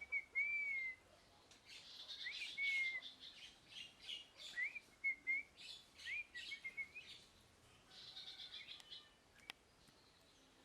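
Rose-ringed (ringneck) parakeet calling: short whistles that rise and then fall, mixed with quick bursts of chattering chirps, and a single sharp click near the end.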